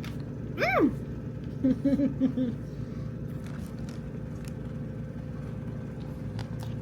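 Steady hum of a car idling with its air conditioning running, heard from inside the cabin. About half a second in, a person gives one rising-then-falling 'ooh', then a few short 'mm' sounds as she tastes a cookie.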